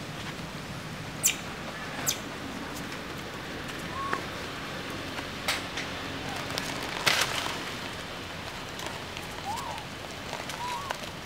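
Outdoor ambience around a troop of long-tailed macaques: short, soft chirping calls that rise and fall, a few at first and several close together near the end, over a steady background hiss. A few sharp clicks and rustles come through, the loudest about two-thirds of the way in.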